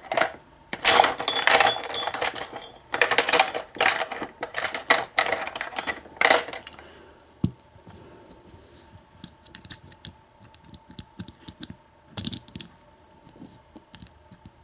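Metal clicking and clinking as a doorknob's lock parts are worked with a hand tool, dense and fairly loud for the first six seconds or so, then only faint scattered ticks.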